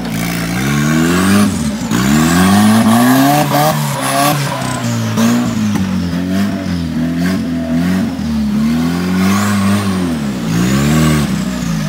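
Off-road 4x4's engine revved up and down over and over, its pitch climbing and dropping every second or two, with a high whine that rises and falls along with the revs.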